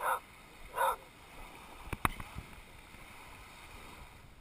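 Small waves lapping and washing on a sandy bay shore, a steady wash of water noise. Two short, loud calls come right at the start, under a second apart, and a sharp knock sounds about two seconds in.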